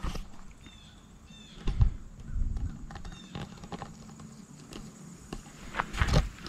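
Wind gusting on the microphone in irregular low rumbles, with a few faint high chirps.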